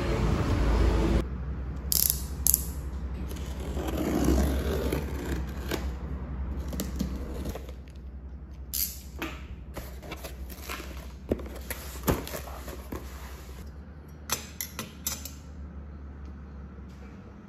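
Cardboard boxes of a drip coffee set being handled and unpacked by hand: rustling and scraping of cardboard with scattered sharp clicks and taps over a low steady hum. A second of louder street noise cuts off at the start.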